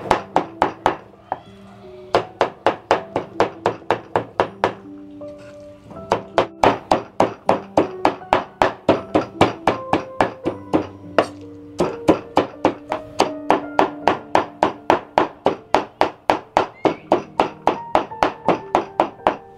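Cleaver mincing raw squid on a round wooden chopping board: rapid, even strikes at about four a second, pausing briefly about a second in and again around five seconds in. Background music plays underneath.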